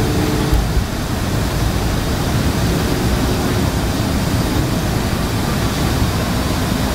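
Steady, loud engine and air rush heard from inside the cabin of a Boeing 717-200, its rear-mounted Rolls-Royce BR715 turbofans running.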